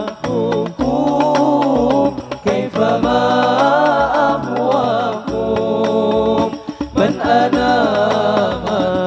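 Boys' rebana ensemble performing a devotional sholawat: voices singing long, ornamented phrases together into microphones, with rebana frame drum strokes, amplified through stage speakers. The phrases break off briefly a few times for breath.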